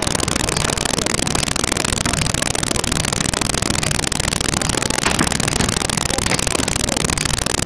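Loud, steady, heavily distorted noise filling the whole range, with no distinct sound standing out: a recording of poor sound quality.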